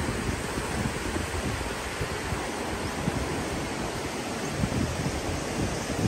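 Wind buffeting the microphone in irregular low gusts, over the steady wash of surf on the beach.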